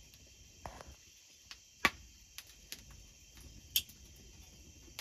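Insects chirring steadily in the background, with a few sharp clicks, the loudest about two seconds in and another near four seconds.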